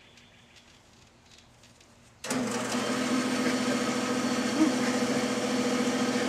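Craftsman band saw-sander switched on about two seconds in: its motor comes up abruptly and then runs with a steady hum.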